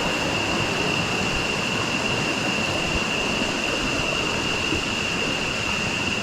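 Rushing river water, a steady loud rush with a steady high-pitched whine over it.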